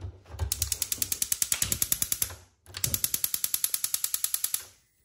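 Gas cooktop burner's spark igniter clicking rapidly and evenly as the control knob is held in, in two runs with a short break between them, stopping just before the end.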